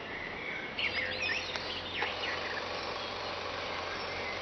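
Outdoor ambience with a few short bird chirps in the first half, over a steady low hum and background hiss.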